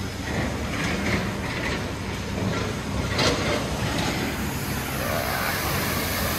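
Car engine and tyres in a flooded street: a steady rumble, then from about five seconds in a small car drives through standing water, its wheels throwing up a growing hiss of spray. A brief sharp noise about halfway through is the loudest moment.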